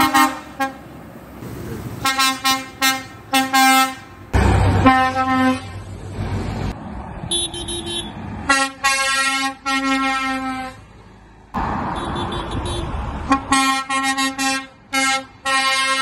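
Lorry horns sounding in runs of short blasts and a few longer ones, mostly on one pitch with a higher-pitched horn in between, over the noise of passing traffic.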